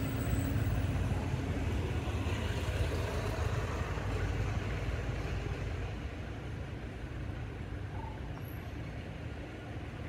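Steady low rumbling background noise with no distinct sound events, easing slightly a little past the middle.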